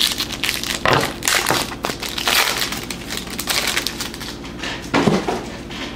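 Foil trading-card pack wrapper being torn open and crumpled by hand, a dense crinkling and crackling that dies down near the end.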